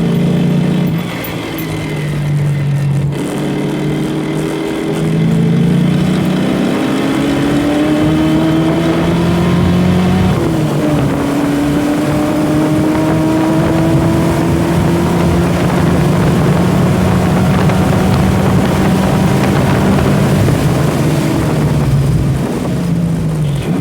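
Ford Mustang at speed on a race track, heard from inside the car: a steady drone with whining tones that climb slowly in pitch as the car accelerates. The whine drops sharply about ten seconds in, then climbs again and falls near the end. The owner describes this as the transmission making unhappy noises at high rpm.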